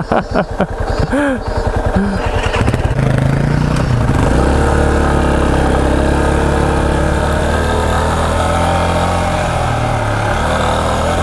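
Yamaha Serow 250's single-cylinder engine pulling away and then running steadily at low revs while riding up a gravel forest track. The first few seconds are uneven; from about three seconds in the engine note holds steady.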